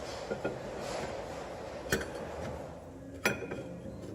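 A few sharp metallic clinks, the loudest about two seconds and about three seconds in, as the rear brake caliper is fitted back over the new pads and bracket.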